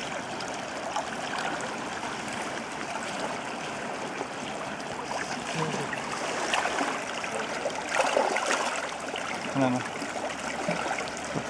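River water flowing over the shallows, with water sloshing and splashing around hands that hold a released Atlantic salmon facing into the current to revive it. A few louder splashes come about six and a half and eight seconds in.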